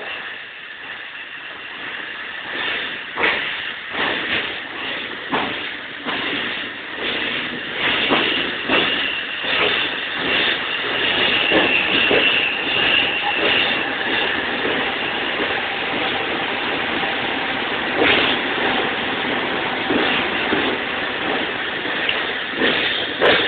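Electric passenger train pulling in along an underground station platform: the noise builds over the first few seconds and then holds, with the wheels clacking repeatedly over rail joints, all echoing in the enclosed station.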